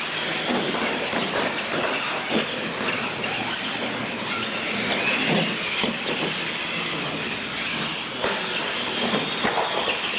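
R/C monster trucks racing side by side: electric motors and gearboxes whining over tyre noise on a concrete floor. Several sharp clattering knocks near the end come as one truck lands off a launch ramp and tumbles.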